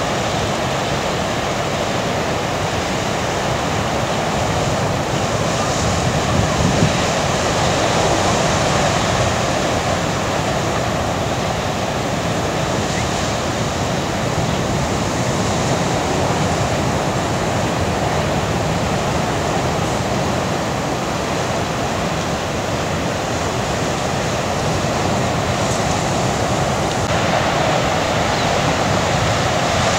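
Ocean surf breaking and washing: a steady, continuous rush of water noise with no distinct single impacts.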